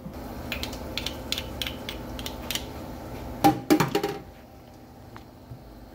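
Metal spoon scraping and tapping mashed guacamole out of a mortar: a run of light clicks, then a few louder knocks about three and a half seconds in.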